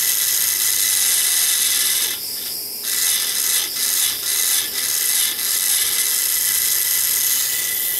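Small low-voltage DC motor salvaged from a computer drive, running on a homemade Peltier thermoelectric generator and whirring as it spins a rubber-tyred wheel. About two seconds in the high whir drops out for a moment, then catches several more times, as a finger presses against the wheel to test the motor's torque.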